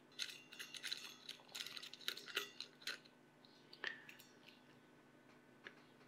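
Faint handling noise of a small antenna and its gold-plated SMA connector on a handheld analyzer: scattered light clicks and small metallic clinks over the first three seconds, then a sharper single click about four seconds in and another near the end.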